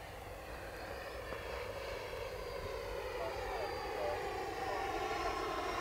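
Faint whine of the 70 mm electric ducted fan of a FlyFans Saab JAS-39 Gripen model jet, driven by a 1900 kV inrunner motor, heard in flight and growing gradually louder.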